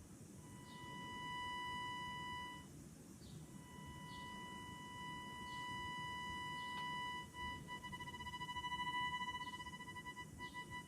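High-pitched electronic tone from a microwave detector probe's loudspeaker. It drops out twice and comes back as the probe passes through nodes and antinodes of a standing microwave wave, then turns into a rapid pulsing from partial cancellation between the transmitted and reflected waves.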